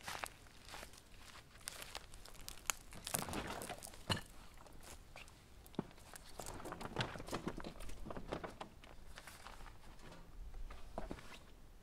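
Footsteps on grass and gear being loaded into an inflatable dinghy: rustling of a bag and crinkling of a plastic water jug, with scattered knocks and clicks as things are set down in the boat.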